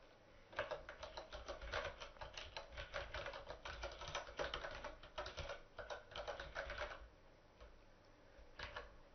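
Computer keyboard typing: a quick, uneven run of keystrokes for about six seconds, then a pause, with a couple of last key taps near the end.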